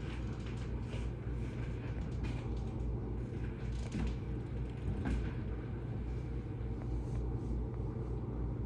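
Blizzard wind gusting at high speed, a steady low rumble that wavers throughout, with a few faint clicks.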